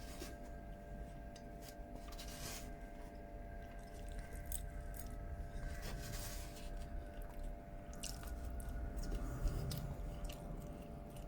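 Close-up chewing and crunching of crispy salt and chilli shredded chicken, with scattered short sharp clicks, over a faint steady hum.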